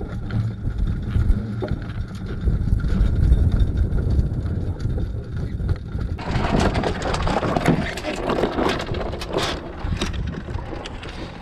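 Wind buffeting the microphone aboard a dinghy under sail, a low rumble. About six seconds in it changes abruptly to a brighter rushing hiss with crackles of wind and water as the boat moves through choppy water.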